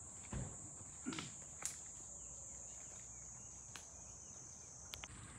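Faint, steady high-pitched drone of insects in summer vegetation, with a few soft thumps in the first two seconds.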